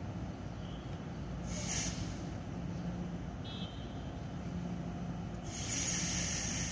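Taiwan Railway EMU900 electric multiple unit pulling out of the station, with a steady running rumble. There are two sharp hisses of air: a short one about a second and a half in, and a longer one from about five and a half seconds in.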